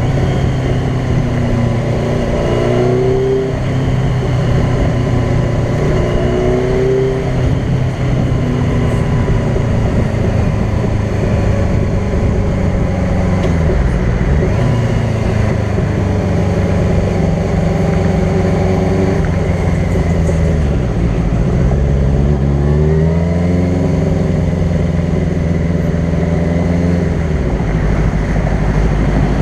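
Sport bike engine running at highway speed, with a steady rush of wind and road noise. The engine note dips and climbs back up twice, once around the middle and again about two-thirds of the way in.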